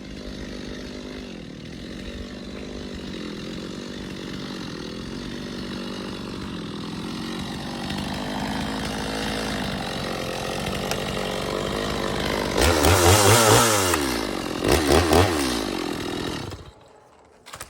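Gasoline chainsaw running at a steady speed, then revved hard twice near the end before it cuts off suddenly.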